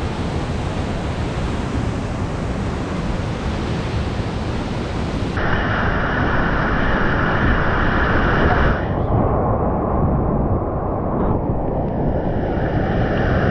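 Loud, steady rush of whitewater in a river rapid, heard from a kayak running the rapid. About five seconds in, the sound changes abruptly to a brighter hiss of water churning close around the boat.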